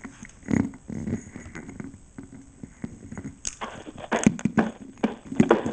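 Irregular clicking and knocking sounds, sparse at first and coming faster and louder from about halfway through.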